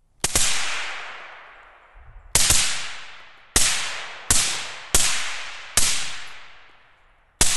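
Seven shots from a suppressed 11.5-inch 5.56 AR rifle fitted with an AB Suppressor A-10 Warthog, fired at an uneven pace with some in quick succession. Each sharp report trails off in a fading echo over about a second.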